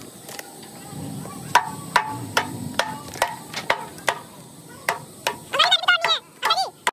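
Hand hammer striking the concrete block cast on an old band saw's frame, about ten sharp blows at an uneven pace, chipping the concrete away.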